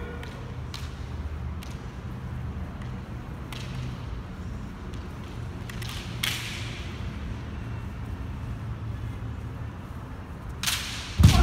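Kendo bout on a wooden floor: steady low hall hum with a few light clacks of bamboo shinai while the two fighters stay locked close. A little before the end comes a sharp crack followed by a heavy thud, typical of a shinai strike with the attacker's foot stamping on the wooden floor.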